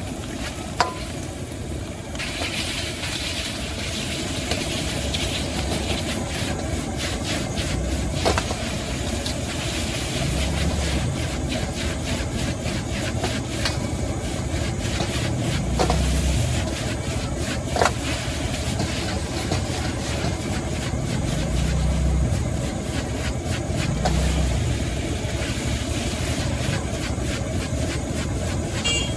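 Steady rushing roar of a gas wok burner under food frying in a wok, with a few sharp clanks of a metal spatula against the wok.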